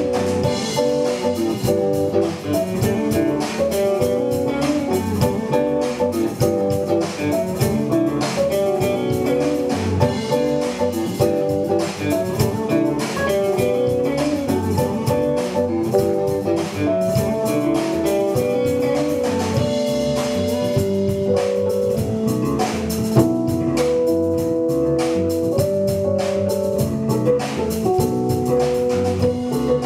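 Instrumental post-rock band playing live: electric guitars picking repeating melodic lines over a drum kit keeping a steady beat.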